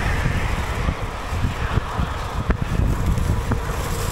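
Wind buffeting the microphone of a cyclist's chest-mounted camera while riding at speed on a paved road, a steady low rumble. Two faint ticks about a second apart come in the second half.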